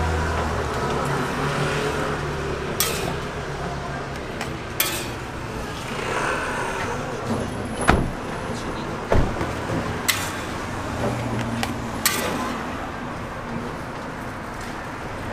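Metal spatula clinking and scraping against a flat steel griddle, about six sharp knocks spread through, over a steady hum of busy market background noise.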